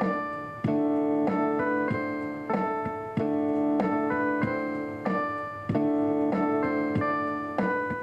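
Gentle keyboard music: held electric-piano chords with single notes added above them, a new chord struck about every two and a half seconds.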